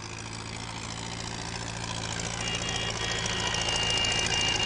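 Farm tractor engines running as a slow convoy passes, with a steady low hum that grows louder as the vehicles approach. A thin, steady high-pitched whine joins in about halfway through.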